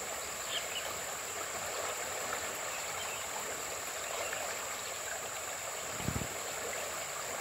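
Steady rushing of a shallow, muddy stream flowing past, with a thin, constant high tone over it and a brief low bump about six seconds in.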